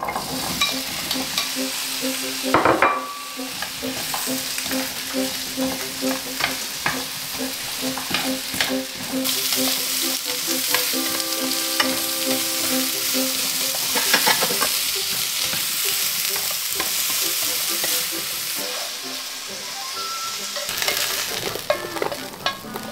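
Diced zucchini and red bell pepper sizzling in a hot frying pan as they are stirred with tongs, with many small clicks and scrapes of the tongs against the pan. The sizzle eases later on, and near the end pieces drop into a ceramic baking dish.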